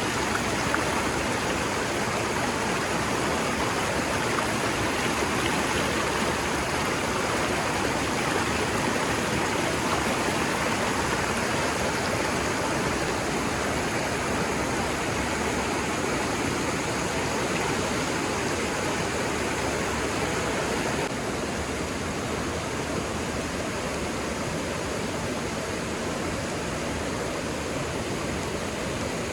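Steady rushing noise of flowing water, like a stream or small waterfall, a little quieter from about twenty seconds in.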